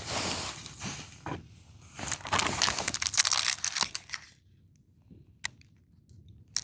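Foil wrapper of a Pokémon trading card booster pack crinkling and tearing as it is opened, loudest from about two to four seconds in, followed by a few light clicks.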